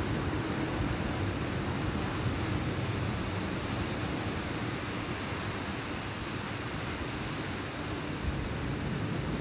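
Steady wind noise buffeting the microphone, a low rumbling hiss with no clear events.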